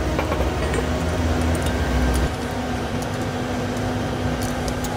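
A steady mechanical hum in a workshop, with a low rumble that drops away a little over two seconds in. A few faint metallic clicks come from a spanner on the bolts of an air-bellow bracket.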